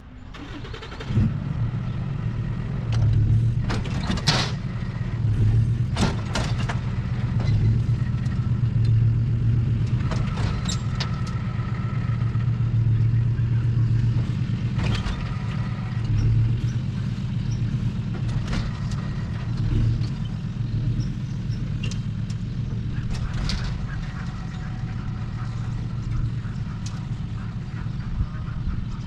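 Steady low engine-and-motor drone of a truck and dump trailer unloading fill dirt, starting about a second in, with scattered knocks and clunks from the trailer and load.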